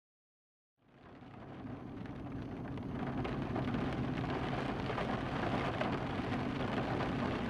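Silence, then a steady rain-like hiss with crackle and a low hum underneath fades in about a second in, growing louder for a few seconds before holding steady.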